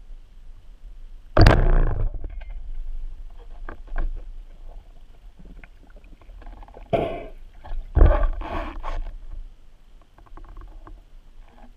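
Wooden roller speargun fired underwater: a single sharp, loud thump about a second and a half in as the bands release and the shaft leaves. It is followed by scattered faint clicks and two further bursts of noise later on.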